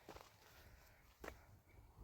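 Near silence, broken by two faint short taps about a second apart.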